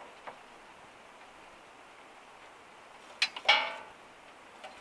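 Two sharp clicks, then a metallic clank with a brief ringing tail, about three seconds in, as a hand works at a small wood-burning stove. A faint steady hiss and a few soft ticks lie underneath.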